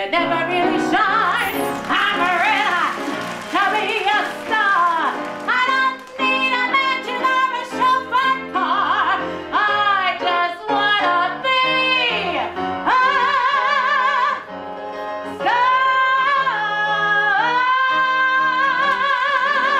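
A woman sings a cabaret song with wide vibrato, holding long notes toward the end, over upright piano accompaniment.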